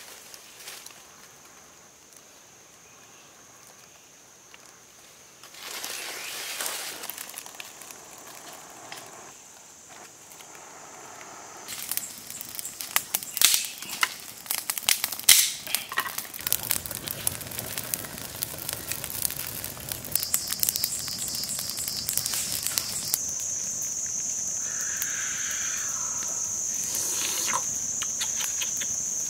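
A small fire of dry leaves and twigs catching and burning, with a burst of sharp crackling and popping about halfway through, then a softer crackle. A steady high-pitched insect drone sounds underneath for much of the time.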